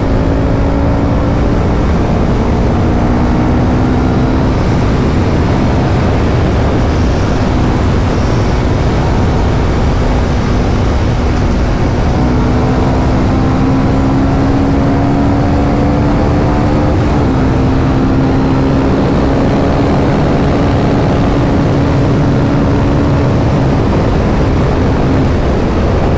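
Tuned KTM RC 390's single-cylinder engine running steadily at highway cruising speed, its pitch drifting slightly up and down, under heavy wind rush on the onboard microphone.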